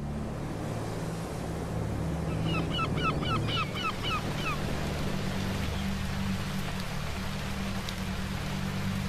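Steady rushing of water, like sea waves and rain, over soft low background music. About two and a half seconds in, a bird gives a quick series of about nine short rising calls lasting around two seconds.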